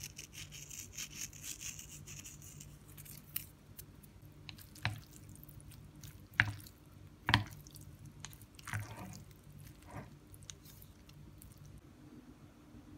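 Salt sprinkled with a faint hiss over raw sliced beef in a bowl, then chopsticks mixing the wet meat: soft squishing with scattered sharp clicks of the chopsticks against the bowl.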